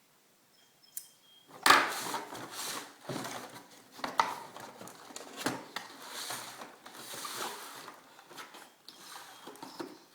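Toy blaster's cardboard and plastic packaging being handled and opened: a sharp knock, then irregular rustling, scraping and clicks.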